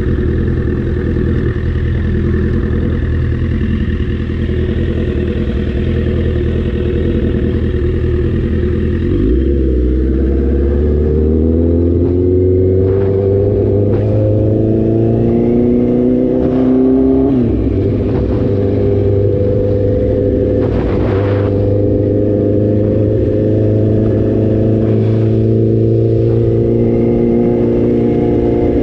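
Motorcycle engine running under way. The pitch climbs steadily for several seconds as it accelerates, drops sharply at a gear change about two-thirds of the way through, then holds steady at cruising speed.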